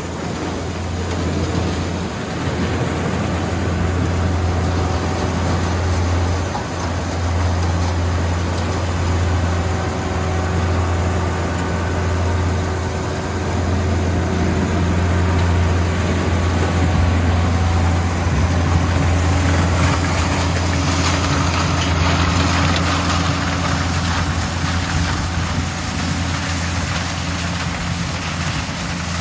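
Corn harvester's engine running steadily with a deep, continuous drone. In the second half, a louder hiss of machinery noise joins it.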